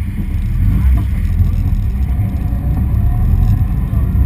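Open-cockpit sports car's engine running hard during a drift run, under a heavy, uneven low rumble of wind buffeting the onboard camera's microphone.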